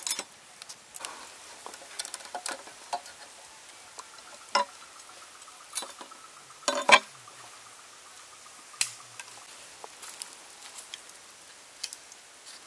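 Food-prep handling sounds: a bamboo spit and a knife knocking and scraping against a steel tray as a whole chicken is skewered. The sound comes as scattered clicks and knocks, the loudest about seven seconds in.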